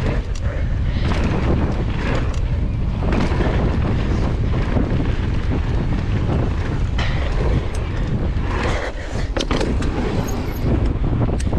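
Wind rushing over the microphone and a downhill mountain bike clattering over a rough dirt trail, with scattered sharp knocks throughout.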